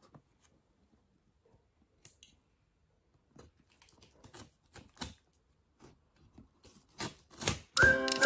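Scissors cutting through the packing tape of a cardboard box: scattered small snips, clicks and scrapes that get busier, with a couple of louder cuts near the end. Music starts just before the end.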